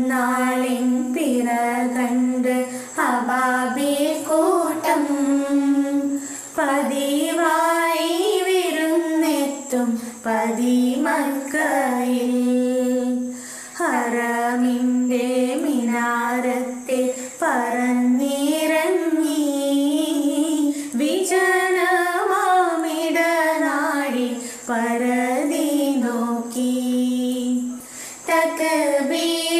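Girls singing a Malayalam Eid (Perunnal) song together, phrase after phrase with long held notes.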